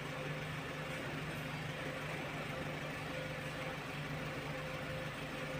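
Small pickup truck's engine idling steadily: a low, even hum with a faint higher whine over it.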